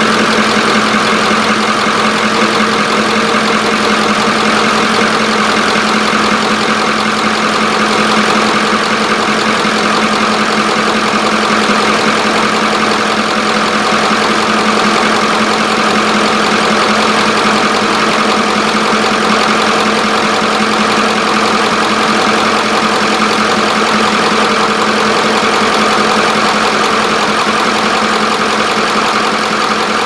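A 1995 Ford E-350's 7.3 L Power Stroke turbodiesel V8 idling steadily. It is running on a swapped-in known-good injector driver module, which shows the van's crank-no-start came from a failed injector driver module.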